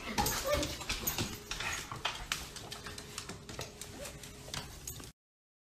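A pug whimpering while it begs for food, with scattered clicks and taps. The sound cuts off suddenly about five seconds in.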